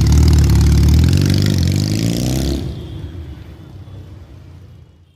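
Regal Raptor Spyder's 160 cc twin-cylinder engine running loudly through its exhaust, then fading away over the last two and a half seconds.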